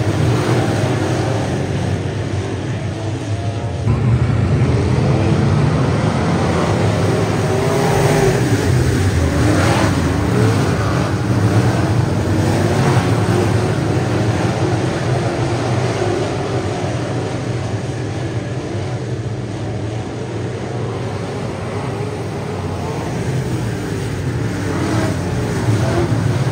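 Dirt-track race cars running hard on a dirt oval, several engines at once, with the pitch rising and falling as cars pass one after another. The sound eases a little past the middle and builds again near the end.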